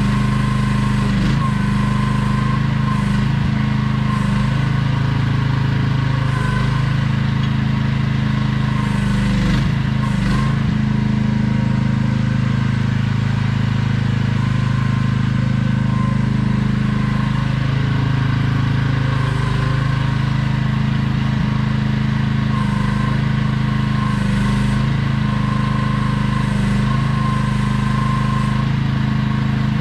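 AGT QH12R mini excavator's engine running steadily at a constant speed with a loud, even hum and a faint steady whine above it. A few brief knocks come from the machine as it works.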